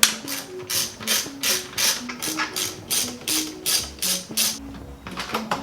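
Background music with a steady, crisp beat of about three hits a second under a short stepping melody.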